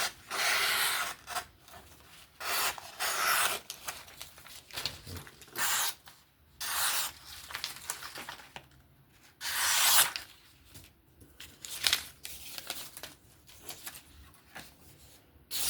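Qvist Bladeworks PE3 folding knife slicing through paper in a series of short strokes, each under a second, an edge test on a blade that has not been stropped since use.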